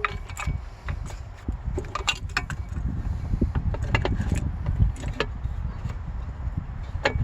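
Clicks, knocks and metallic clinks of hands working on the battery compartment under the seat, with a battery hold-down bracket being fitted between the two batteries, over a low rumble.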